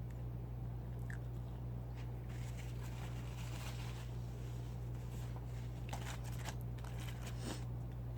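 A person chewing and crunching fried food up close to the microphone, with scattered crackly crunches and small mouth clicks, over a steady low hum.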